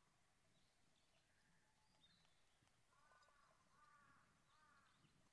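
Faint crow cawing three times in a row, starting about three seconds in. A few thin, high bird chirps come earlier.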